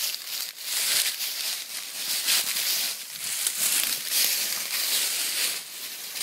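Irregular rustling and crackling of dry leaves and brush, coming in uneven surges with no steady tone.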